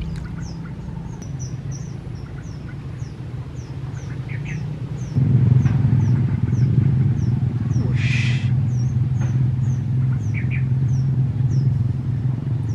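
A bird repeating short, high, falling chirps about twice a second, over a steady low hum that grows louder about five seconds in. A brief hiss sounds about eight seconds in.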